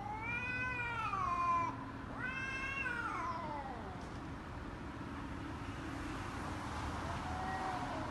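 Two domestic cats in a standoff. One gives long, drawn-out yowls that rise and fall in pitch, two in the first three seconds and a fainter one near the end: threat yowling between cats squaring off.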